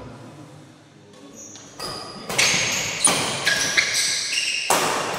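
Badminton rally: sharp racket hits on the shuttlecock and short, high-pitched squeaks of court shoes on the floor, starting about two seconds in and coming several times over the next three seconds.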